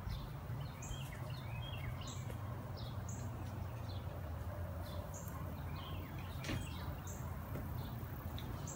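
Birds chirping outdoors, with a short high call repeating about every second or two, over a steady low rumble.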